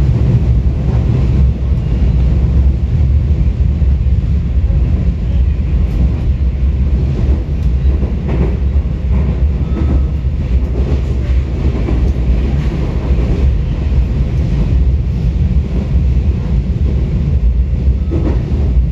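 Seoul Line 4 subway train heard from inside the car as it runs through a tunnel: a steady low rumble of wheels on rail with faint clicks. It is coasting through the AC/DC power changeover section, with the cabin lights out and no traction power.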